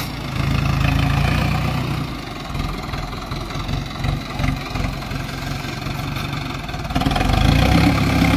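Sonalika DI 750 tractor's diesel engine working under load on a steep sandy climb, rear wheels spinning in the sand. It runs steadily at first, then drops and runs unevenly with irregular low pulses, and grows louder again about seven seconds in.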